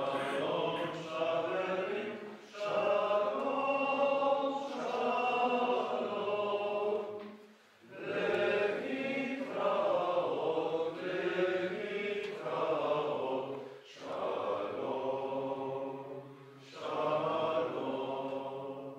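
Male liturgical chanting in an Eastern Christian service, sung in long held phrases with short pauses for breath between them.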